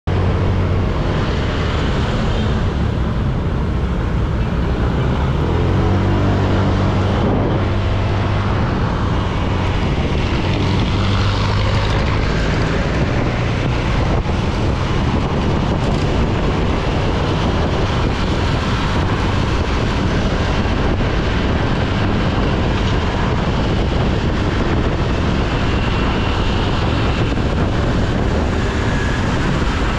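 Honda Click 125i scooter's single-cylinder engine running as the scooter gathers speed, with wind rushing over the microphone. The engine note is plain in the first dozen seconds, then the wind rush mostly covers it as the speed climbs.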